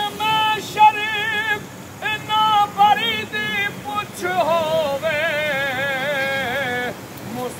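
A single high voice singing a devotional Punjabi kalaam in long, wavering held notes, with short breaks between phrases.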